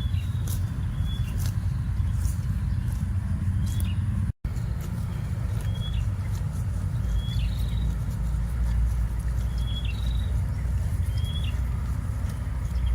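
A bird chirping short, high notes every second or so over a steady low rumble. The sound cuts out for an instant about four seconds in.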